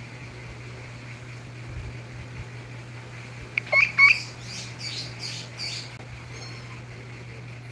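A mouse caught by cats squeaking: a few sharp, high squeaks about three and a half seconds in, then a quick run of about five shrill, raspy squeals. A steady low hum lies underneath throughout.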